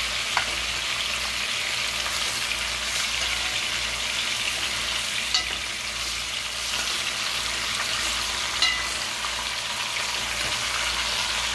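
Chicken pieces sizzling steadily as they brown in an aluminum pot, browned with a little sugar, with three sharp clicks spread through it.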